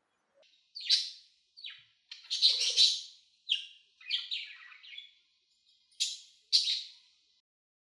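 Pet budgerigar chirping and chattering in a string of short, high chirps and squeaks.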